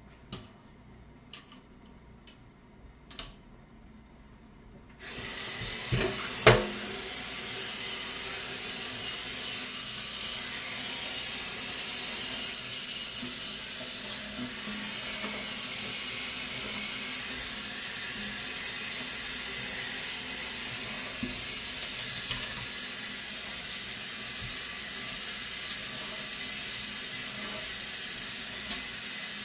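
Water running steadily from a kitchen tap, starting abruptly about five seconds in after a few light clicks, with a sharp knock just after it comes on.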